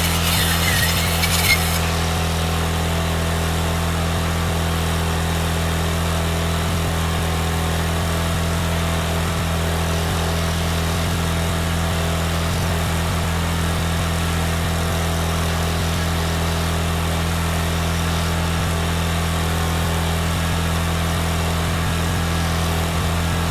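Welding machine running with a steady low hum. A bright hissing crackle is heard over it at first and stops about a second and a half in.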